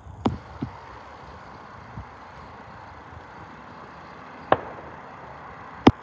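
Steady outdoor background noise with five short, sharp knocks. The two loudest come near the end, about a second and a half apart.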